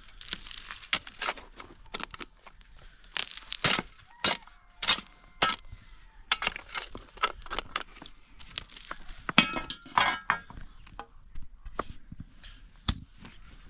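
Pickaxe chopping into stony soil: irregular sharp strikes with cracking and clinking of stones and earth breaking loose. A short pitched call sounds about two-thirds of the way through.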